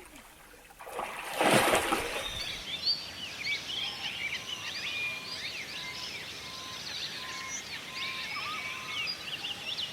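A brief loud rush of noise about a second in. It is followed by a dense chorus of many birds chirping and whistling, with rapid high chirps and repeated steady mid-pitched whistles over a light background hiss.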